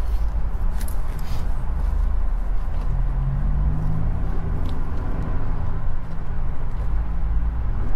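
Steady low rumble of a vehicle's engine and road noise while driving slowly in heavy highway traffic.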